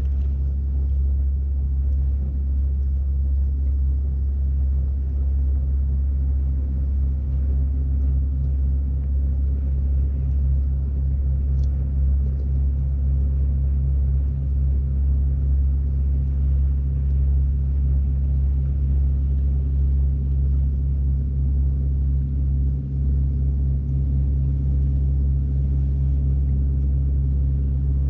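An engine running steadily with an even, low drone that does not change.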